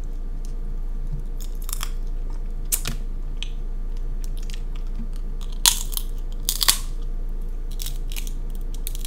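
King crab leg shell being cracked and snapped apart by hand, a handful of sharp crunching cracks with the loudest pair just past the middle. A steady low electrical hum runs underneath.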